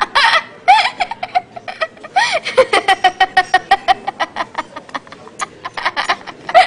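A young girl laughing hard and uncontrollably: a long run of rapid high-pitched 'ha' pulses, several a second, broken by louder whooping rises and falls at the start, about two seconds in, and at the end.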